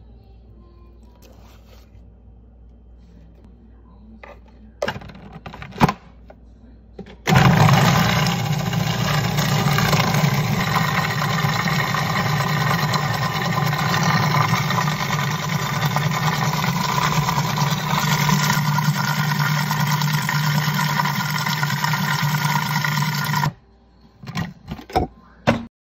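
Cuisinart food processor motor running steadily for about sixteen seconds, blending a thick cream-cheese and yogurt cheesecake filling, then stopping abruptly. A few sharp knocks and clicks come before it starts and after it stops.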